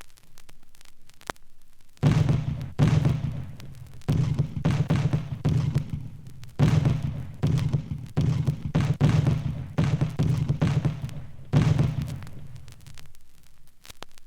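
A series of a dozen or so heavy, irregularly spaced thuds, each with a short ring after it, starting about two seconds in and stopping about a second before the end, over faint record hiss.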